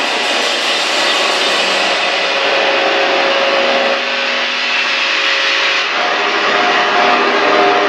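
Live band playing a loud, steady wall of distorted electric-guitar noise with no clear beat. A few held tones sit in it, one setting in about two seconds in and another near the end.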